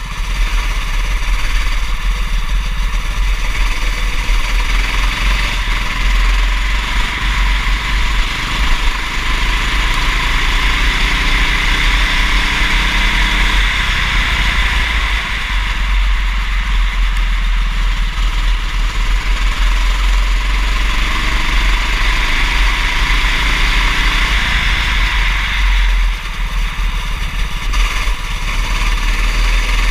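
Go-kart engine running hard and rising and falling in pitch over several seconds as the kart accelerates and slows. Over it lies a steady rushing noise and a heavy low rumble.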